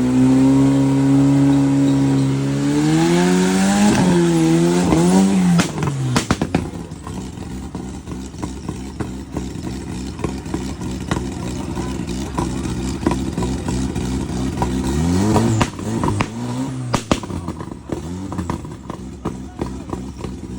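Off-road race buggy engine revving hard, its pitch rising and falling for the first few seconds. It then drops to lower, steadier running with scattered sharp knocks, and there is another short rev up and down about three-quarters of the way through.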